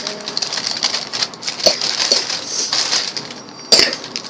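Plastic snack wrappers crinkling and rustling as they are handled, with many small crackles and one sharp, loud crackle near the end.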